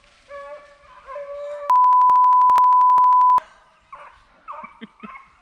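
Hunting hounds baying with long drawn-out howls, cut off about one and a half seconds in by a loud, steady 1 kHz bleep tone lasting nearly two seconds. After the bleep, the hounds go on with shorter yips and barks.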